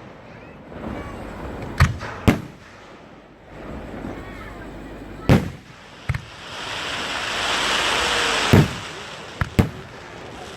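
Fireworks going off: about seven sharp booms a second or more apart. A hiss builds from about six seconds in and ends in a loud boom near eight and a half seconds.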